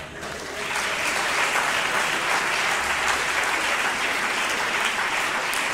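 Live audience applauding, swelling to full strength about half a second in and holding steady.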